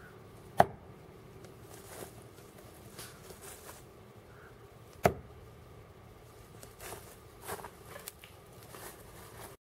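Bear Grylls Ultimate Fine Edge fixed-blade knife, thrown, striking a tree trunk twice: sharp knocks about half a second in and about five seconds in. Lighter rustling and clicks follow near the end.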